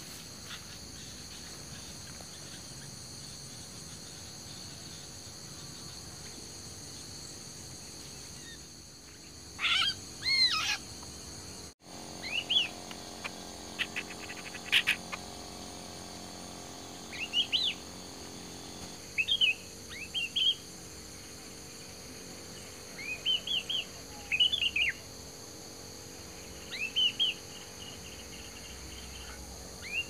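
Sooty-headed bulbul calls: short, bright whistled notes that rise and fall, coming in small clusters every second or few. They begin about a third of the way in and repeat to the end.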